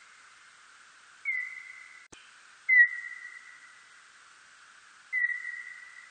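Birdlike noctule bat calls, played back as a bat-detector recording brought down into hearing range. Three whistle-like calls come about a second and a half apart, the middle one loudest. Each drops quickly in pitch into a held tone that fades over about a second, over a steady hiss, with a faint click just before the loudest call.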